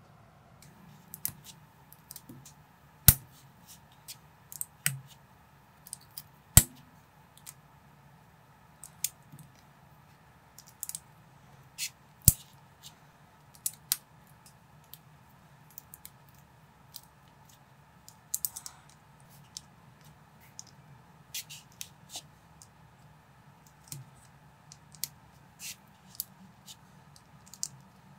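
Small plastic building bricks clicking and snapping together as they are pressed on and handled by fingers, in an irregular run of sharp clicks. A few louder snaps come in the first half.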